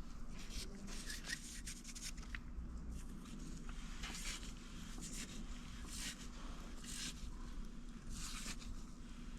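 Short scraping and rubbing strokes, about one a second, over a steady low hum: hand work on a diesel engine part during teardown.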